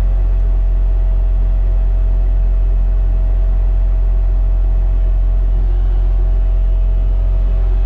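Bobcat skid-steer loader's diesel engine running at a steady speed, heard from inside the operator's cab: a loud, even low drone with a faint steady whine over it.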